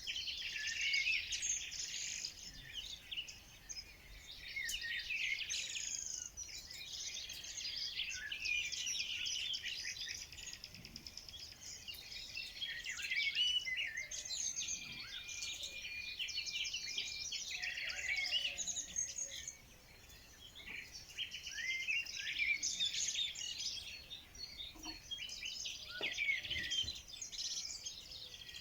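Songbirds singing together in a dense chorus of quick, high chirps and trills, overlapping one another, with a short lull about two-thirds of the way through.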